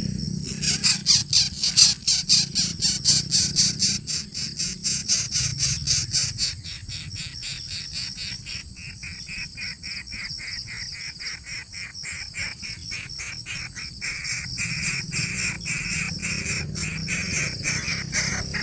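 Insects chirping in a fast, even pulse of about three to four chirps a second over a steady high whine. The chirping is loudest in the first six seconds, then softer.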